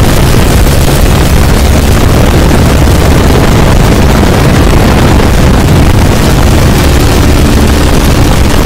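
Open-cockpit biplane's engine running loud and steady while the plane rolls on the ground, with propeller blast and wind buffeting the microphone.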